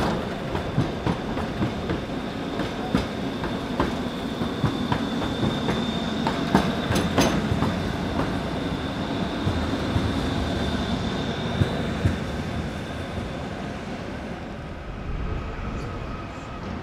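Articulated low-floor tram running past on its rails: a steady rumble with repeated sharp clicks from the wheels over rail joints, and a thin high whine from about four to thirteen seconds in. The sound fades as the tram moves off.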